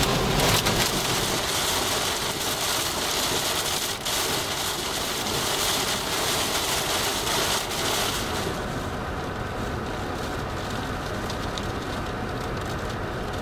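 Heavy, wind-driven rain hitting a vehicle's roof and windshield over the steady hum of the vehicle on a wet road. About eight seconds in, the hiss of the rain drops away and the vehicle hum is left.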